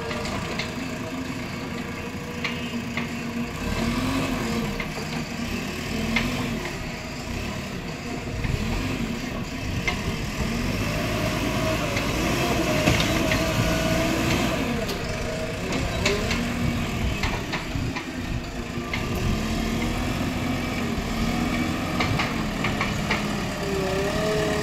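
JCB Xpert backhoe loader's diesel engine running, its pitch rising and falling as the engine revs under load while the front loader bucket pushes and lifts soil. A few short knocks come through here and there.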